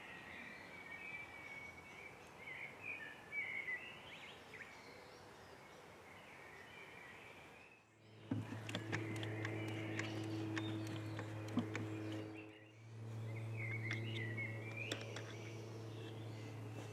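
Birds chirping over outdoor background noise. After about eight seconds a steady low machine hum starts, with scattered clicks; it dips briefly around the middle and comes back while the birds carry on.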